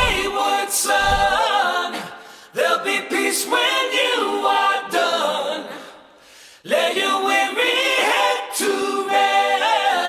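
Intro music: a group of voices singing a cappella, in three phrases with short breaks between them.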